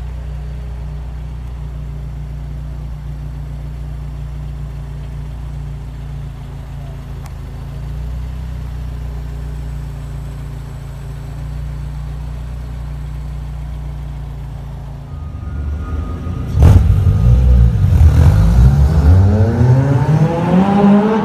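2005 Lotus Elise's Toyota 1.8-litre four-cylinder idling steadily. About fifteen seconds in, a sharp crack, then a sports car engine revving hard, its note climbing and falling several times, echoing under an overpass.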